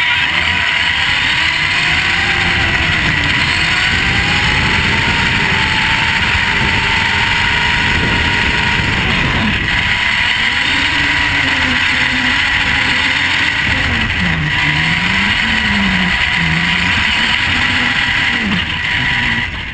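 Vaterra Twin Hammers RC truck's electric drivetrain heard from its onboard camera. The motor and gear whine rises and falls with the throttle over a steady high whine, with a constant rush of tyres on gravel.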